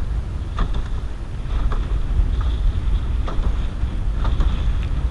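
Strong wind rumbling on the microphone while choppy waves slap against a canoe in several short hits.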